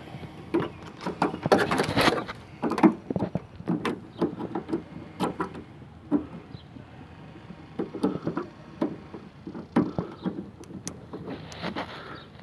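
Irregular clicks, knocks and small rattles of a metal lock cylinder being handled and pushed against a plastic door handle, as it is tried in the handle.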